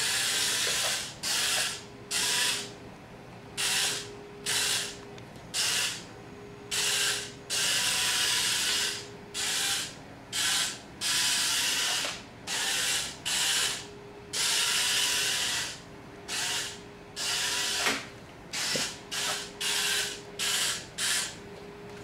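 Toy wall-climbing RC car's small geared motors whirring in short, start-stop bursts as it is driven across the floor, about twenty bursts of under a second to a second and a half each. A faint steady hum runs underneath.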